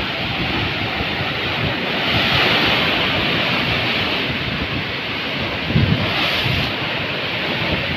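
Heavy storm surf churning and breaking close by, with wind buffeting the microphone; the level peaks briefly about six seconds in.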